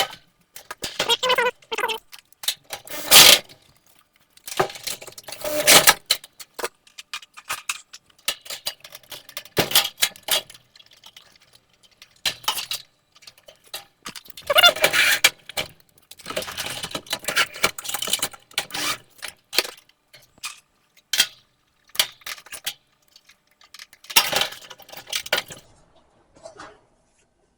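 Irregular metallic clinks, clatter and scraping of hand tools, screws and sheet-metal parts being handled while the dryer's heating element housing is unscrewed.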